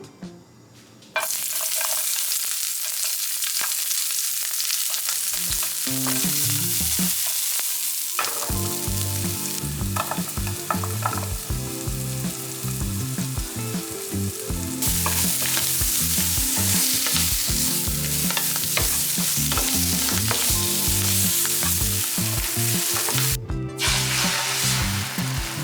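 Food sizzling as it fries in a pan, with scattered light clicks of a utensil. The sizzle starts about a second in and drops out briefly near the end.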